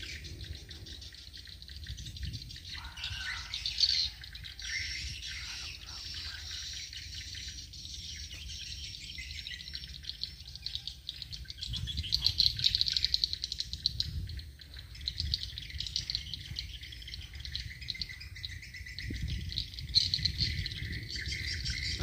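Swiftlets chirping and twittering in a rapid, high-pitched trilling chatter, busiest about halfway through and again near the end.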